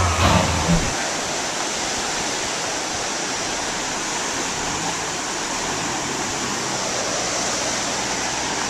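A music track's bass ends about a second in, leaving a steady rushing noise of wind blowing across the microphone.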